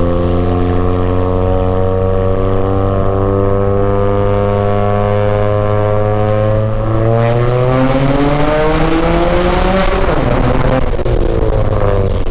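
Turbocharged 10th-generation Honda Accord engine, with its exhaust straight piped (muffler and resonator deleted), pulling under acceleration. The pitch climbs slowly, rises faster about seven seconds in, and turns into a brief jumble of rising and falling tones near the end.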